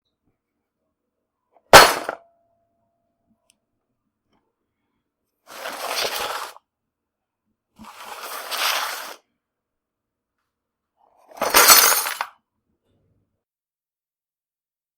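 A toolbox falling, in four separate crashes with clinking clatter: a sharp hit with a brief ringing tone after it, two longer rattling spills of about a second each, and a last loud crash.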